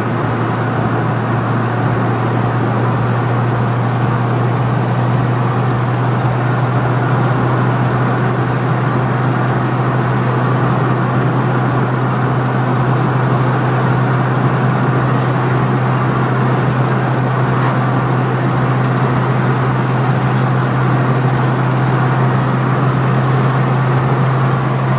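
Car cabin noise while driving at a steady speed: a constant low engine hum under road and tyre noise, heard from inside the car.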